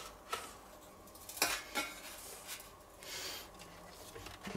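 Quiet kitchen handling: a few light clicks and taps of a plastic scraper on a plastic tray, with a brief scraping rustle about three seconds in as croquettes are cut and turned in breadcrumbs.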